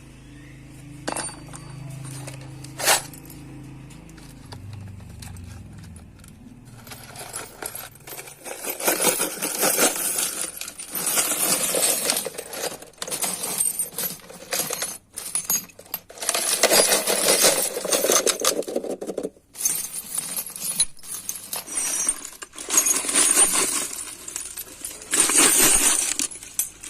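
Metalwork on a sheet-metal bread pan: a low hum with two sharp clicks, then from about seven seconds in bursts of rapid metallic scraping and clinking, each lasting one to several seconds with short breaks between.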